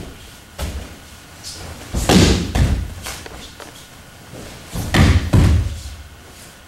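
Thuds of bodies hitting a padded mat as aikido partners take falls from throws: a light knock just after the start, then two heavy falls, about two seconds in and about five seconds in.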